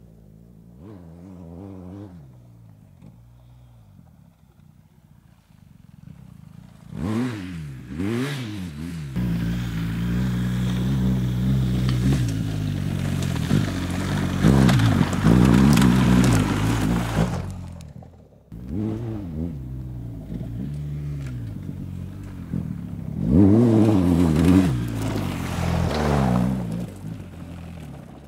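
BMW R 1250 GS's boxer twin revving and pulling hard off-road, with gravel clattering and scraping under the tyres as the bike passes close. The sound breaks off abruptly about two thirds of the way through, then the engine revs rise and fall again in a second run.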